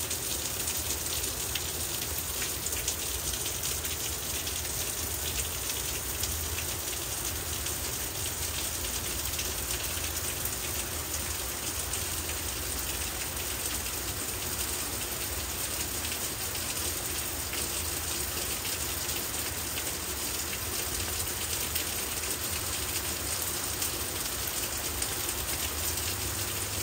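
Steady rain falling on the leaves of garden trees and shrubs: an even hiss made up of countless fine drop ticks, with a low steady rumble underneath.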